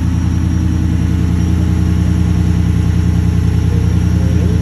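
Ford F-150 pickup engine idling steadily.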